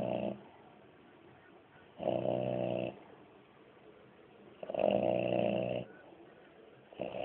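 French bulldog snoring in a steady rhythm: pitched snores about a second long, roughly every two and a half seconds. One snore is ending at the start, two full snores follow, and another begins near the end.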